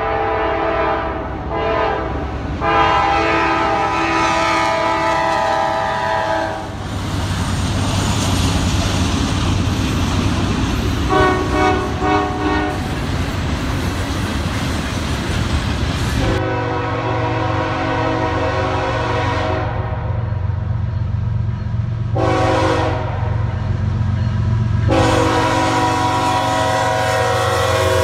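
Diesel freight locomotive horn sounding a series of blasts, mostly long with one short one, the warning pattern for a grade crossing. Between the blasts the passing train makes a loud, steady rumble, with wheels clacking on the rails.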